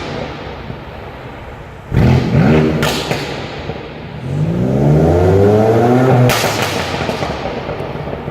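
BMW M4's twin-turbo straight-six revved twice from idle: a short blip about two seconds in, then a longer rev that climbs and is held for about two seconds. Each time the throttle closes, the exhaust gives a sharp burst of crackles and pops before the engine settles back to idle.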